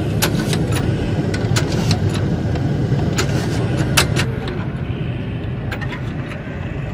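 Hand-lever cast-iron french-fry cutter pressing potatoes through its blade grid: a run of sharp metallic clacks and snaps, the loudest about four seconds in. A steady low engine rumble runs underneath.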